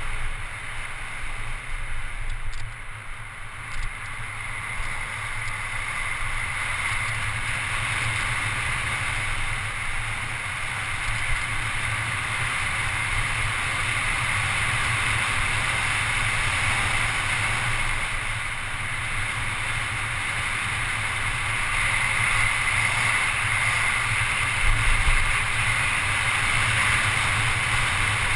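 Steady rush of wind over a handlebar-mounted GoPro HD at descending speed, mixed with the hum of mountain-bike tyres rolling on asphalt. It dips a little about two to four seconds in.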